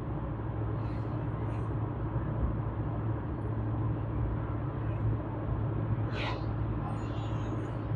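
A car being driven on the road: steady engine and road noise with a low hum, and a brief higher-pitched sound about six seconds in.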